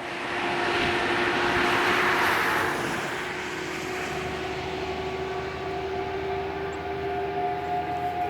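Outdoor warning sirens sound a steady tone that grows stronger after a few seconds, while a passing vehicle's road noise is the loudest sound over the first three seconds.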